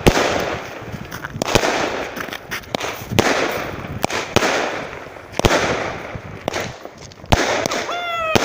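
Fireworks going off: a sharp bang about every second or so, each followed by crackling.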